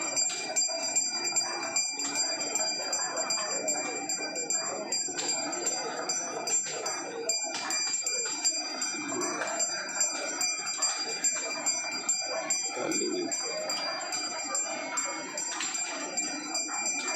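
A puja bell rung continuously with rapid, steady strikes, its high ringing tone held throughout, over a murmur of voices.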